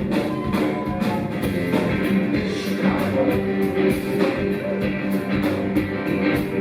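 A live rock band playing an instrumental stretch of a song, with drums keeping a steady beat under sustained bass and guitar tones.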